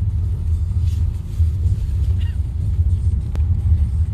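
Steady low rumble of a car driving, engine and road noise heard from inside the cabin, with one sharp click about three seconds in.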